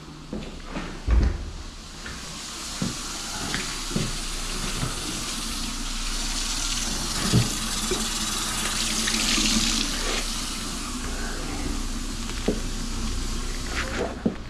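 Kitchen faucet running into a stainless-steel sink as gloved hands rinse under the stream, with scattered knocks against the sink. The water comes on about two seconds in and stops just before the end; a heavy thump comes about a second in.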